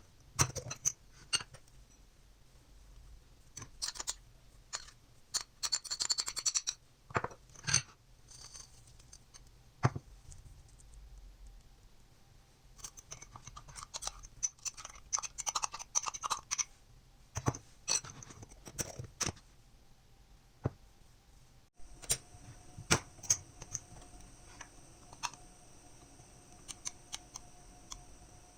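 Kitchen preparation sounds: scattered clicks, taps and knocks of utensils and containers being handled, with two stretches of rustling or crinkling. A faint steady hum comes in for the last few seconds.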